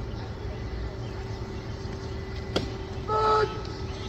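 Steady outdoor low rumble with a constant faint hum, a single sharp click a little past halfway, and a brief steady-pitched beep about three seconds in.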